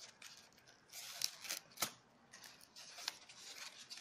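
Kitchen scissors snipping a fringe into a folded sola wood sheet: several short snips, the loudest a little under two seconds in.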